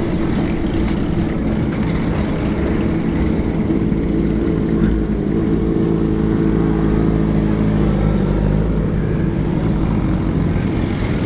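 Old motorcycle engines running steadily as the bikes ride slowly past, a continuous low engine drone with no sharp revving.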